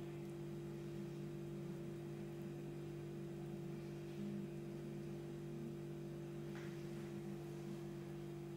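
Steady low hum of a few held tones, unchanging throughout.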